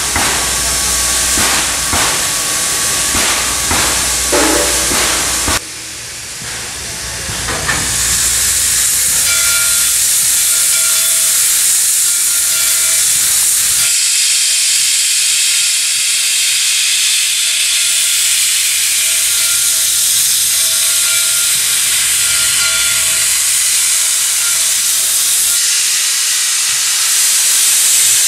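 Susquehanna 2-8-2 steam locomotive #142 hissing steam. Close up at first, with scattered knocks and a low rumble. After a sudden change about five seconds in comes a steady loud hiss of the engine blowing steam from its open cylinder cocks as it approaches.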